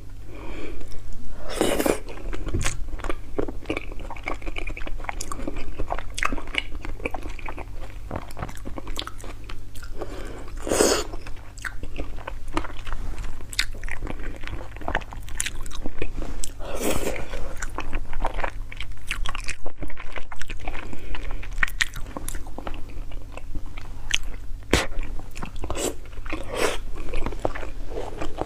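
Close-miked eating: chewing and biting with many sharp, crunchy clicks and a few louder, longer sounds, over a steady low hum.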